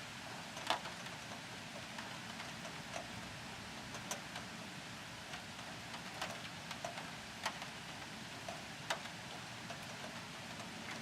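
Steady rain hiss with irregular sharp ticks of single drops hitting a hard surface close by, the loudest about a second in.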